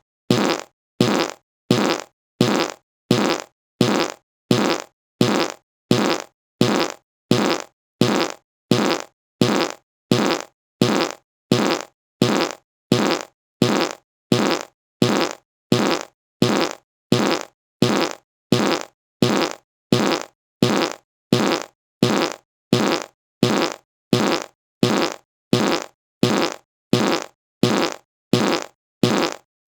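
A short fart sound, the same one repeated over and over at an even pace of roughly one every three-quarters of a second, with brief silences between.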